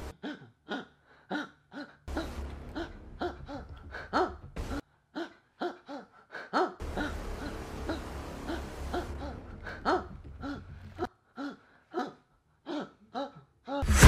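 A person's short, repeated 'ah' gasps of a sneeze building up, each rising and falling in pitch, over and over without the sneeze coming.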